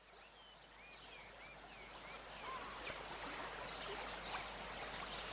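Nature recording of flowing water, an even rushing haze, with short high bird chirps over it, fading in and growing louder over the first three seconds.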